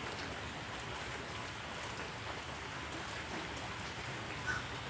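Steady rain falling, an even patter of drops on the ground and water, with a brief higher sound near the end.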